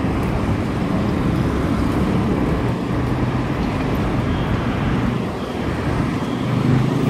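Steady city street noise, mainly a low traffic rumble.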